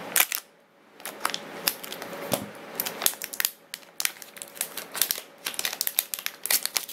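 Clear plastic bag crinkling in the fingers as it is worked open: a run of quick, irregular crackles with a short lull about half a second in.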